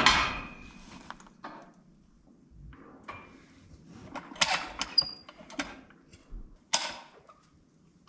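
Scattered metal clanks and clicks from a calf puller (calving jack) being fitted and worked at the back of a calving cow. A sharp knock comes at the start, with more clicks about halfway through and near the end.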